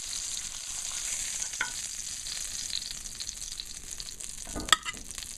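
Seasoned ground-beef burger patties sizzling in a hot frying pan, a steady hiss, with a few sharp knocks near the end, the loudest about four and a half seconds in.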